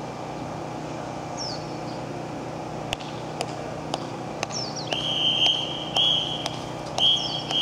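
A whistle gives four even blasts about a second apart, starting about five seconds in: the count-in signal for a children's drum corps. Before it come a few short sharp clicks and a high falling chirp repeating every couple of seconds over a steady low background.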